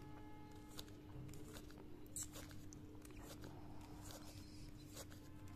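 Faint plastic clicks and rattles of a Gear Pyramix puzzle being twisted over and over, its gear-meshed pieces turning together as one layer is rotated round until it lines up.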